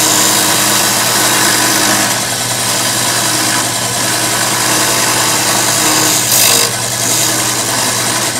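Drill press motor running steadily with a wooden ring blank spinning in its chuck, sandpaper held against the turning wood adding a steady hiss over the motor hum. The hiss flares louder briefly about six seconds in.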